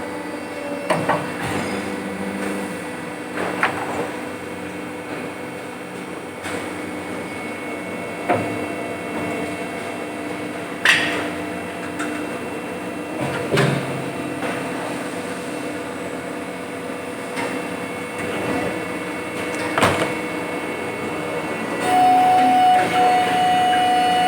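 Plastic injection moulding machines running in a factory hall: a steady mechanical hum with scattered sharp clanks and knocks. Near the end a steady whining tone starts and the noise grows louder.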